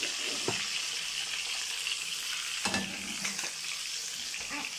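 Chicken tabaka pieces sizzling steadily in hot oil in a frying pan over a high flame, with a few short knocks and clinks as a plate is set down on the chicken to press it.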